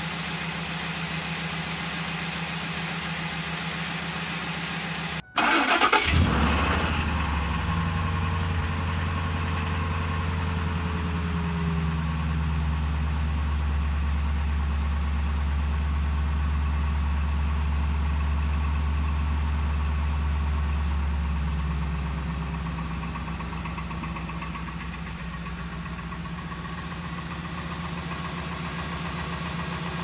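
Ford 5.4-litre two-valve V8 running steadily, then, after a cut about five seconds in, cranking and catching on a cold start. It settles into a fast idle that drops to a lower, quieter idle about 22 seconds in. On this engine the owner puts the cold-engine racket down to piston slap.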